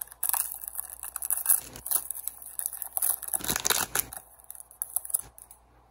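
Plastic wrapper of a hockey card pack being torn open and crinkled: a busy run of sharp crackles and rustles that dies away near the end.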